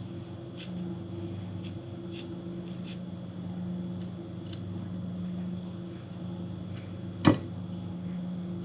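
Steady low electrical hum of a kitchen appliance, with faint light taps about once a second and one sharp click about seven seconds in.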